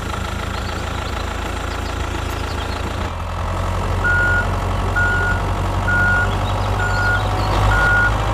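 Tractor engine running steadily. About halfway through, a reversing alarm starts beeping, five beeps about once a second.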